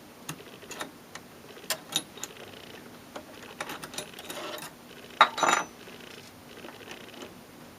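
Light clicks and taps of a metal spring hook against the cassette deck's mechanism as a new rubber drive belt is worked onto its pulleys, with a louder brief rattle about five seconds in.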